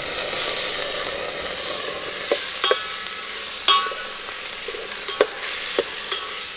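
Washed rice sizzling as it roasts in hot ghee in a metal pot, stirred with a steel spoon. From about two seconds in, the spoon strikes the pot several times with short ringing clinks.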